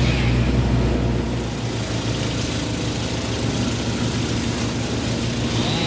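A heavy engine runs steadily; its deep low rumble drops off about a second and a half in, and the engine keeps running.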